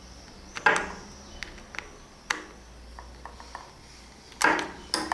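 Screwdriver driving a small screw into the red plastic tying head of a Rubangel Tape Binder, giving scattered sharp clicks and knocks of metal on plastic. A louder clatter of handling the part comes near the end.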